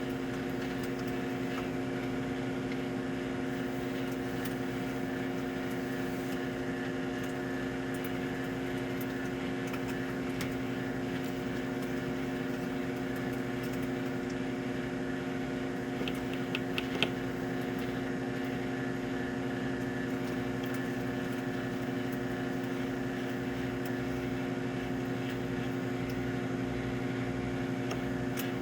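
Farberware microwave oven running: a steady mains hum, with a few faint pops from the cooking food about sixteen to seventeen seconds in.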